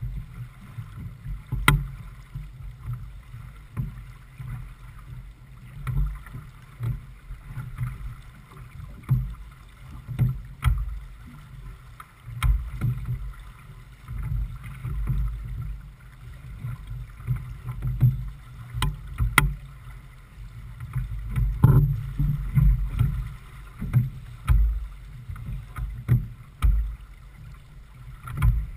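Wind rumbling in gusts on the microphone of a J/24 sailboat under sail, with the hull moving through choppy water and sharp knocks now and then.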